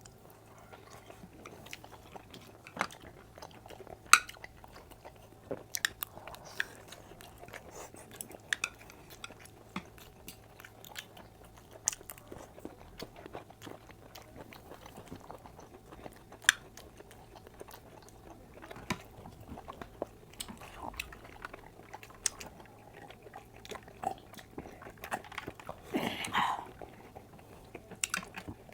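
Close-up eating sounds: chewing and biting with wet mouth clicks, smacks and occasional crunches. Now and then a light clink of cutlery on a dish, and a brief vocal sound about 26 seconds in.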